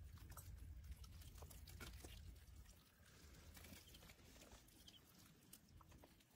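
Near silence: faint scattered clicks and a low rumble that fades about halfway through.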